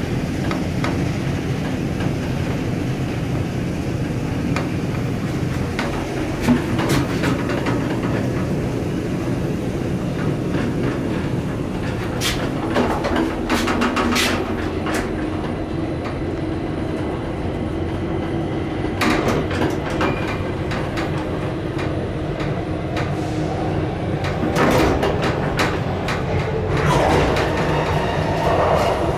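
1975 KONE inclined traction elevator cab travelling along its sloping shaft, with a steady rumble and scattered clicks and knocks. Near the end the car reaches the landing and its doors open, with a rising tone.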